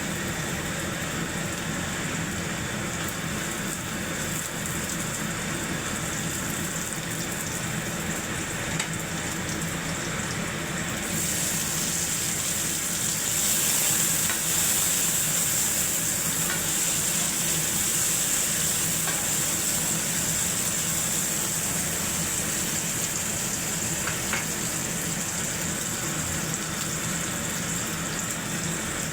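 Food frying in hot oil in a pan, sizzling steadily. The sizzle gets brighter and a little louder about eleven seconds in.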